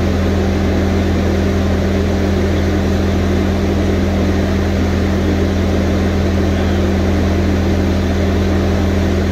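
Bobcat skid-steer loader's diesel engine running steadily, with no change in engine speed.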